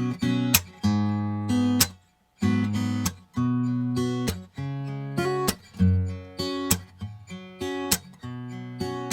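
Acoustic guitar strumming chords in a steady rhythm, each strum ringing out, with a couple of short breaks where the strings are stopped dead.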